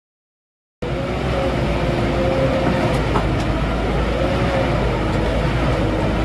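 Heavy shredding machine running, a loud steady low rumble with a faint wavering whine and a few small clicks, cutting in suddenly about a second in after silence.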